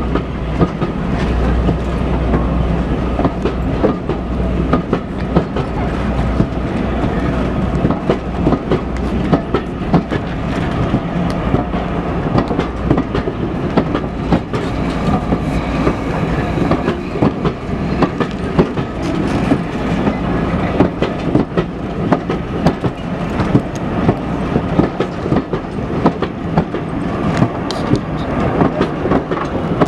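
Teak-bodied vintage passenger coaches rolling past at a steady speed. Their steel wheels make a continuous rumble, with many sharp clicks and knocks from the track.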